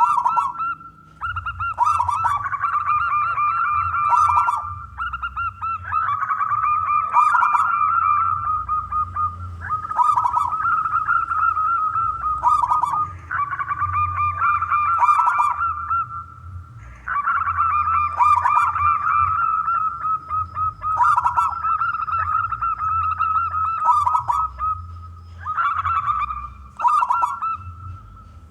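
Zebra doves (perkutut) cooing in rolling, trilled phrases that overlap almost without pause, breaking off briefly every few seconds, with a faint steady hum underneath.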